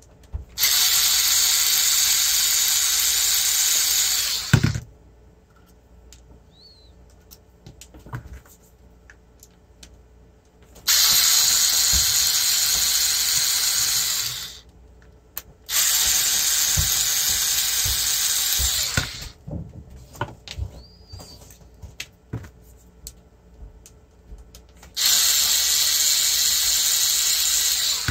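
Small cordless electric screwdriver running in four bursts of about three to four seconds each, spinning up at the start of each and winding down at the end, as it backs the screws out of a battery management system's casing. Light clicks and handling knocks come between the bursts.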